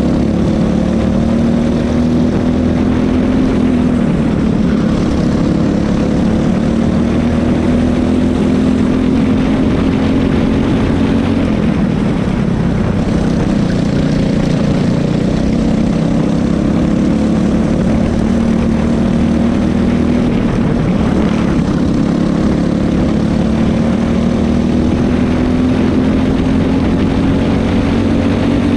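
Cadet racing kart's engine running flat out, heard onboard: revs climb steadily along the straights and drop sharply into the corners twice, then rise again to about 5,600 rpm near the end.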